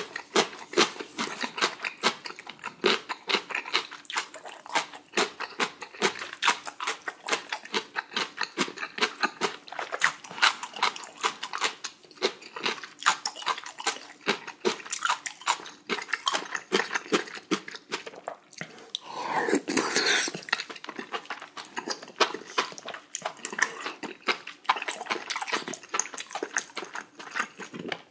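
Close-miked mouth sounds of a person chewing spicy beef small-intestine hot pot with rice: a steady run of quick wet clicks, smacks and crunches. About two-thirds of the way through there is a longer, louder rush of noise.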